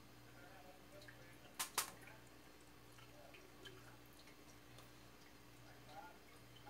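Near silence: a faint steady hum with soft scattered ticks as grated cheese is pressed into a green bell pepper by hand, and two sharp clicks close together about a second and a half in.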